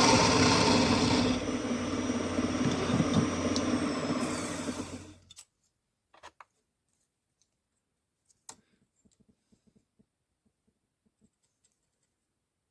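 Wood lathe running, with a noisy hiss over its motor hum that stops about a second in; the motor then winds down and stops about five seconds in. A few faint clicks follow.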